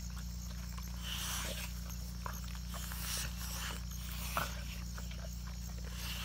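Two bullmastiffs gnawing a raw cow pelvis: scattered short crunches and wet chewing as they work meat off the bone, over a steady low hum.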